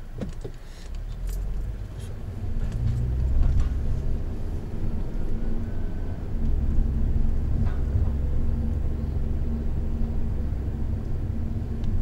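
Steady low engine and road rumble of a Honda Odyssey (RB3) being driven. It gets louder a couple of seconds in and again about halfway through.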